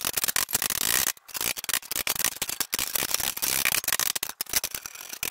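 Irregular metal clicks, taps and scraping from working a bent steel brake backing plate back into shape, a rapid, uneven string of short knocks over a steady hiss.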